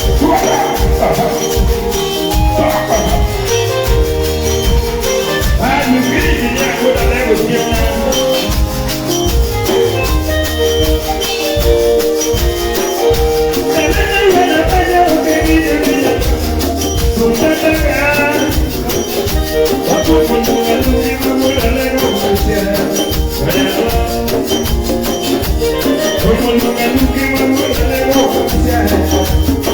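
Live band music played through a PA, with a steady beat of bass and percussion and a voice singing in places.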